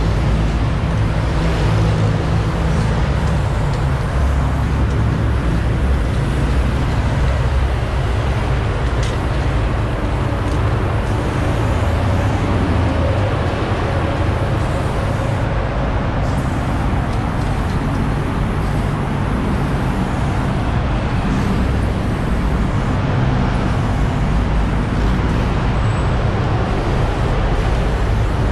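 Steady low rumble of road traffic, with the hiss of an aerosol spray can as black paint is sprayed on concrete in strokes.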